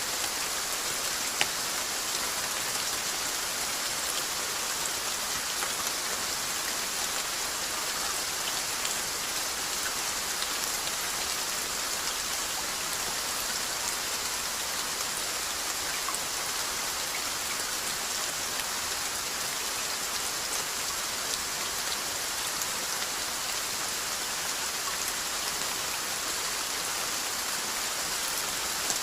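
Steady rainfall: an even hiss of rain with scattered drop ticks, and one sharper drop about a second and a half in.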